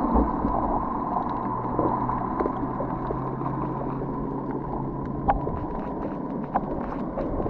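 Underwater ambience picked up by a camera below the surface: a muffled rumble with a steady low hum and a few scattered sharp clicks.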